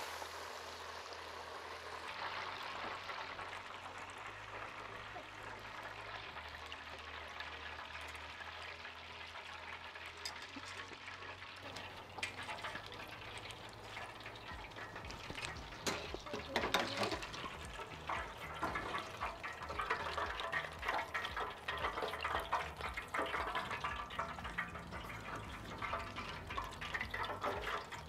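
Flour-dredged lingcod pieces sizzling and bubbling in hot oil in a Bayou Classic outdoor deep fryer: a steady crackling hiss that grows louder and more crackly in the second half.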